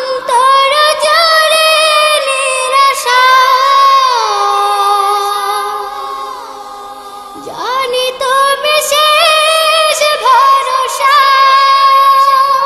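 A children's vocal group singing a wordless melodic passage in long held, wavering notes. The singing softens for a few seconds about halfway through, then comes back strongly.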